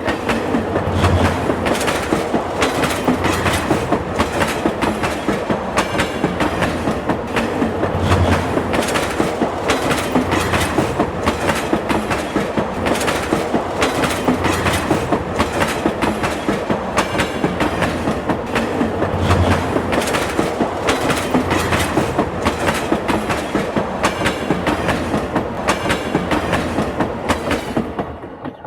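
A train running at speed, its wheels clacking rapidly and steadily over the rail joints above a constant rumble. The sound drops away near the end.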